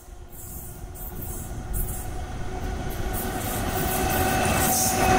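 Express train hauled by a WAP7 electric locomotive with LHB coaches approaching at speed: the rumble of wheels on rail grows steadily louder.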